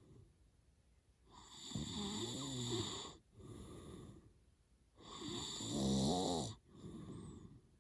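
A man snoring heavily in his sleep: two loud, rattling snoring breaths about three and a half seconds apart, each followed by a softer out-breath.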